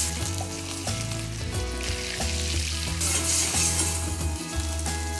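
Orange caramel sauce and pancakes in a stainless frying pan sizzling hard while a splash of Grand Marnier is flambéed, the pan in high flames.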